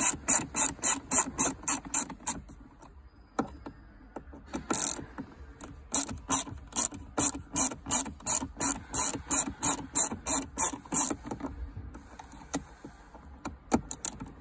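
Hand ratchet with a T20 Torx bit clicking as it undoes screws, in quick runs of about five clicks a second with short pauses between the runs.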